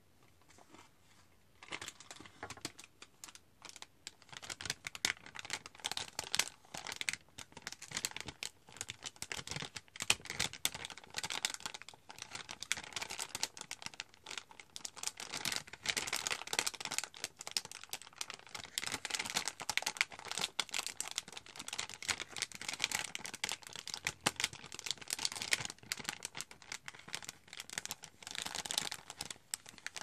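Crinkling and scratching of a printed cocoa powder packet handled by fingers: a dense, irregular run of small crackles that starts about two seconds in.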